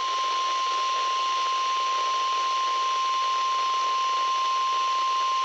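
NOAA Weather Radio warning alarm tone: one steady, unbroken tone near 1 kHz over radio static hiss, the attention signal that comes before a broadcast winter storm alert.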